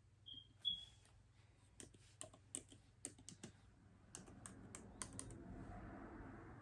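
Faint typing on a MacBook Air keyboard: about a dozen sharp, irregular key clicks over a few seconds, after two short high chirps near the start.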